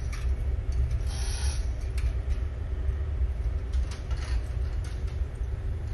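Steady low background rumble with a faint steady hum, over which come a few short rustles and light ticks as the electric motor, hanging on its chain hoist, is handled and steered by gloved hands.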